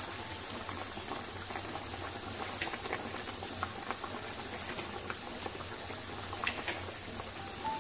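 Spicy curry broth boiling hard in an iron wok (kadai), a steady bubbling hiss with scattered small pops.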